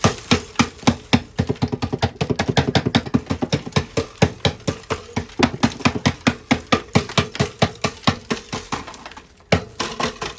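Rapid, repeated strikes chipping at thick ice built up inside a refrigerator, about six or seven knocks a second, with a brief pause near the end.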